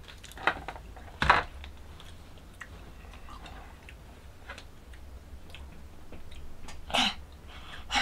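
Chewing and mouth sounds of people eating jjajangmyeon noodles and sweet-and-sour fried pork, with a few short sharp noises about half a second in, a little over a second in and near the end.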